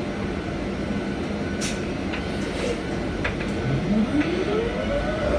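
Inside the cabin of a 2019 Proterra Catalyst BE35 battery-electric bus: a steady rumble with a few light rattles. About four seconds in, the UQM HD220 permanent-magnet drive motor's whine starts and rises steadily in pitch as the bus accelerates.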